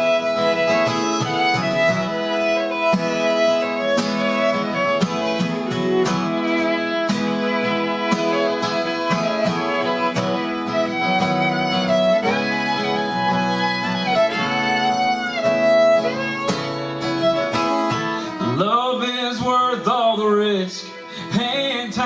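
Fiddle playing a melodic instrumental break over strummed acoustic guitar, with some sliding notes.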